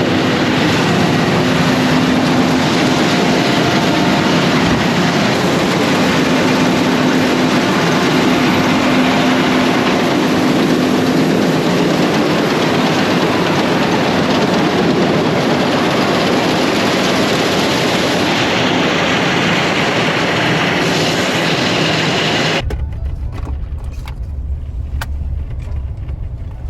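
Harvest machinery running steadily, heard from inside the cab: a loud, even noise with a steady hum. About 22 seconds in it cuts abruptly to a low rumble with little above it.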